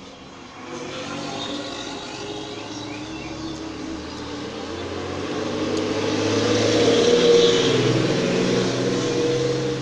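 Engine of a passing motor vehicle, growing louder to about seven seconds in and then fading.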